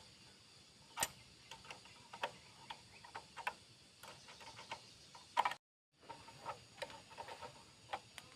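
Irregular light clicks and clinks of hand tools and small metal parts being handled during the strip-down of a Honda Wave 100 motorcycle. The sound drops out completely for about half a second roughly two-thirds of the way through.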